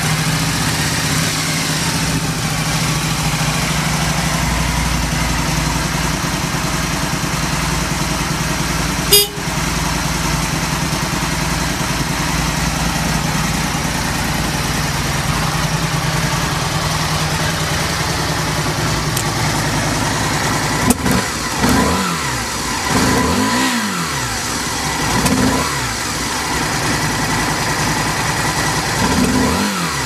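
Aprilia RST1000 Futura's 1000 cc V-twin idling steadily just after starting, with one sharp click about nine seconds in. In the second half the throttle is blipped several times, the revs rising and falling back to idle; the seller lists the engine as free of abnormal noise.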